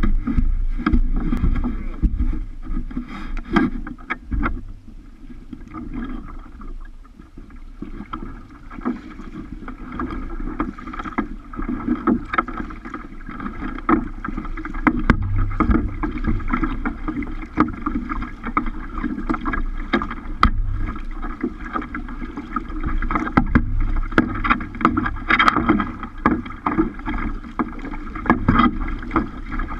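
Water lapping and splashing against a kayak's hull as it is paddled along, with frequent small knocks, picked up close by a camera fixed on the bow.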